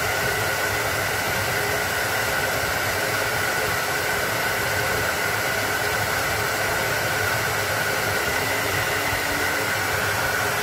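Steady, unvarying rushing noise with a constant whine in it.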